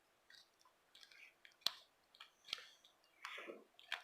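Slime being worked in the hands, faint soft sticky sounds with a couple of sharp little clicks as air pockets pop, one about a second and a half in and another about a second later.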